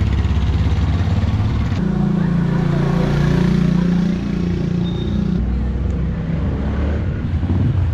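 Motor vehicle engines running in street traffic, a steady low hum. The sound changes abruptly about two seconds in and again about four seconds in.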